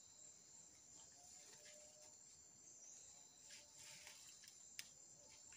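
Near silence: faint creekside ambience with a steady high-pitched hum and a few faint clicks.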